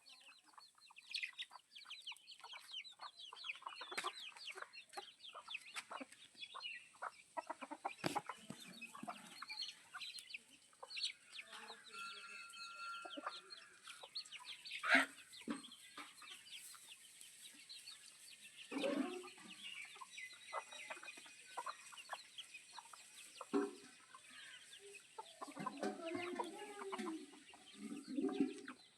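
Chickens clucking: a run of many short clucks and chirps, with a few longer, fuller calls about two-thirds of the way through and near the end.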